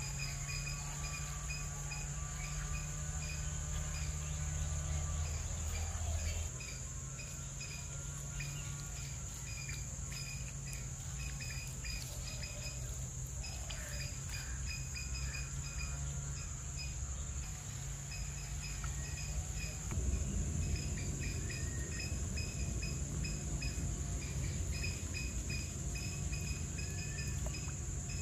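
Crickets chirping: a steady high insect trill with short chirps repeating at an even pace, over a low steady hum.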